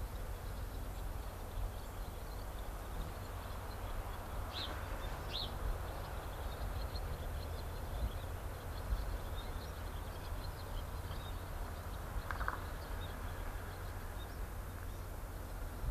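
Outdoor ambience: a steady low rumble with faint small-bird chirps scattered throughout, two clearer calls about four and five seconds in and a brief lower call near twelve seconds.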